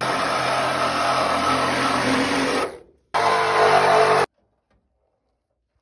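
Reciprocating saw running and cutting through a car's metal hood hinge: a steady loud run of about two and a half seconds, a brief break, then a second shorter run that cuts off suddenly a little after four seconds.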